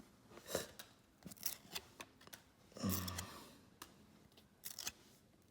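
Foil trading-card pack being torn open and the cards handled, a run of short sharp crackles and snaps, with a brief low hum about three seconds in.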